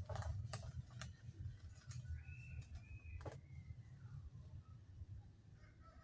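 Faint bird calls: short whistled notes a couple of seconds in and again near the end, over a steady high-pitched whine and a low rumble, with a few sharp clicks in the first second.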